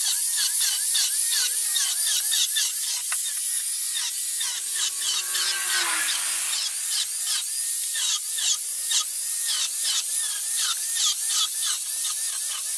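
Trim router (laminate trimmer) running at high speed while cutting along the edge of HPL laminate on a plywood cabinet top, trimming it flush. It makes a loud, continuous hiss with fast rasping chatter.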